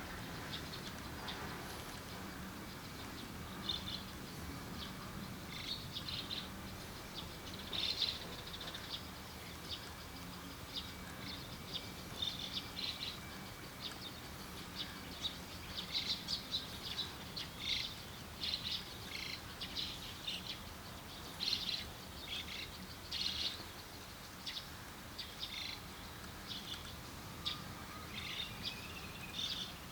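Small birds chirping, short high calls repeated irregularly and thickest in the middle stretch, over a faint steady low hum.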